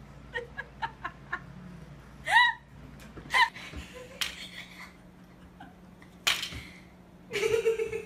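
A person laughing in short choppy bursts near the end, after two brief high-pitched rising squeals in the first half and a few small clicks.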